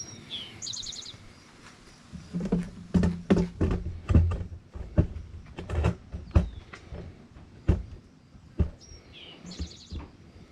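A bird chirps in short, fast trills twice, once near the start and again near the end. In between comes an irregular string of knocks and bumps, about a dozen, which are the loudest sounds.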